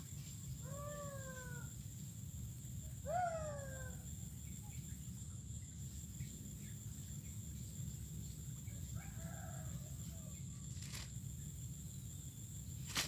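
Two animal calls, each about a second long and falling in pitch, come about a second and three seconds in, with a fainter call near ten seconds. A steady thin high tone and a low rumble run beneath, and a sharp click comes right at the end.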